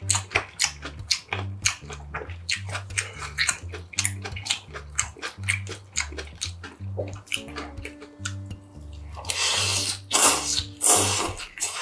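Close-up chewing of raw fish and crisp shredded vegetables from cold raw-fish soup, a quick run of wet crunches, then two loud slurps of the cold broth near the end.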